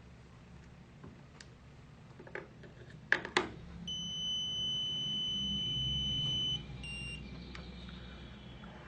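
Electronic keypad deadbolt giving a long steady high beep of about three seconds, followed by a short beep, after a few sharp clicks. The beeps signal that the lock has been reset to factory settings.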